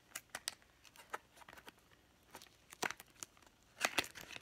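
A small cardboard toy blind box being opened by hand: an irregular string of crackles and snaps from the flap and seal being pulled, the loudest near the end.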